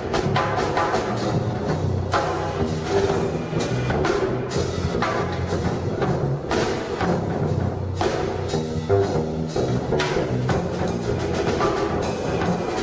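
Live band playing: drum kit strokes throughout, under electric guitars, bass and saxophone.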